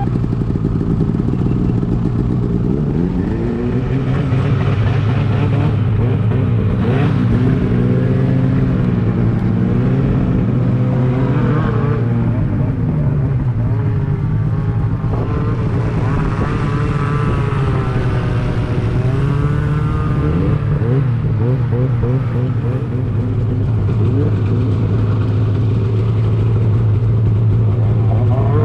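Snowmobile engine running, its pitch rising and falling repeatedly over a steady low hum as it is revved up and down.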